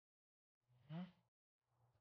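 A man's short voiced sigh that rises in pitch about half a second in, followed by a fainter breath near the end, against otherwise near silence.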